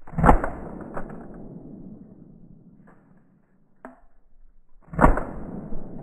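Two shotgun shots about four and a half seconds apart, each with a long rolling echo that dies away slowly.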